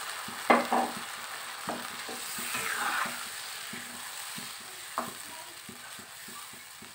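Metal spatula stirring a watery tomato-onion curry masala in a non-stick kadai on a gas flame. The liquid sizzles over the heat, and the spatula knocks against the pan a few times, loudest about half a second in.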